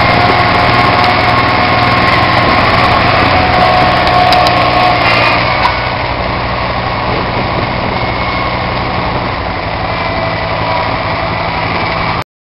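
Kubota D1005 three-cylinder diesel in a Bush Hog JB1 garden tractor running steadily under way. It gets quieter about halfway through, then the sound cuts off abruptly just before the end.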